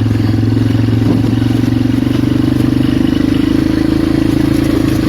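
Polaris Magnum 425 ATV's single-cylinder four-stroke engine running at a steady pace while riding.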